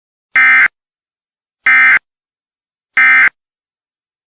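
Emergency Alert System end-of-message signal: three short, buzzy bursts of SAME digital data code, about 1.3 seconds apart, marking the close of the broadcast alert.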